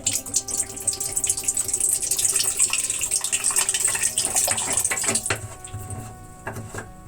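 Liquid running and splashing steadily, then tapering off about five seconds in.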